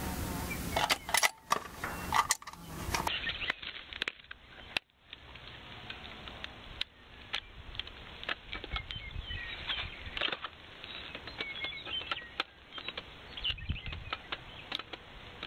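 Handling sounds of a riflescope being adjusted on a bolt-action rifle: scattered small clicks, ticks and rubbing from hands on the scope. Near the start there are several louder sharp clicks and knocks.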